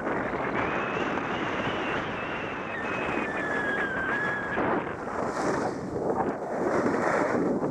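Alpine skis sliding and scraping over groomed piste snow, a steady rushing hiss with wind buffeting the microphone. A thin high squeal holds in the first half, and the scraping grows a little louder near the end as the skier slows.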